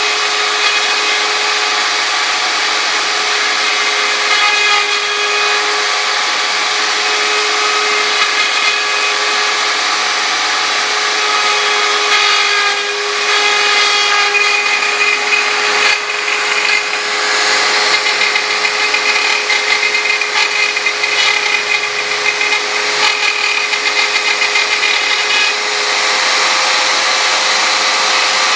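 CNC router spindle running steadily with a constant whine while its bit mills into the workpiece. A grinding cutting noise rides over the whine and turns rougher and more uneven from about halfway through.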